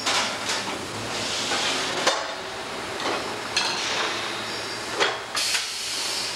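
Steel fender channel clanking against the dies and clamps of a rotary compression bending machine as it is bent and handled: about six sharp metal clanks, with spells of hissing between them over a steady low machine hum.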